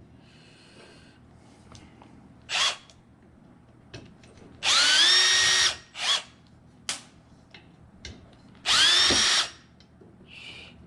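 Power drill running in short bursts, a brief blip and then two runs of about a second each, its motor whine rising in pitch as it spins up and then holding steady, as it drives screws out of a ceiling fan's housing.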